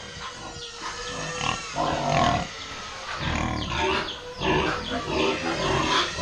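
Domestic pigs in metal crates grunting and calling in short, irregular bursts, a few of them high and falling in pitch.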